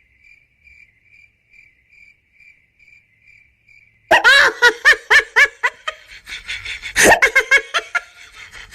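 A lone cricket chirping faintly at an even pace, the stock 'awkward silence' sound effect. About four seconds in it breaks off into loud, high-pitched laughter in quick bursts.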